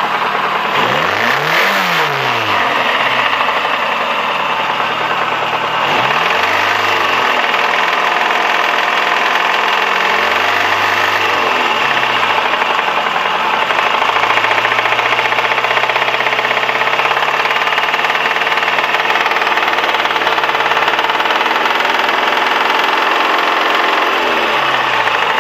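Toyota 4A-GE 1.6-litre twin-cam inline-four engine running with a knock it has recently developed. It idles and is revved up and back down about four times, holding a steady idle in the middle stretch.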